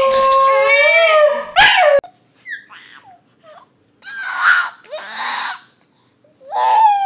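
A newborn crying while a dog howls along, a loud, drawn-out wail that cuts off abruptly about two seconds in. After that comes an older baby's short excited squeals, laughter and babble.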